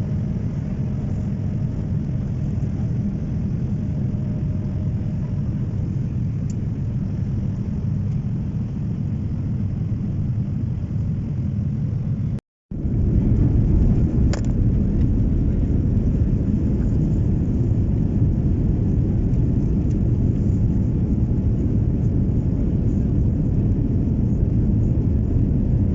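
Steady low rumble of airliner cabin noise, the engines and rushing air heard from inside the passenger cabin. It breaks off for a moment about halfway and comes back a little louder.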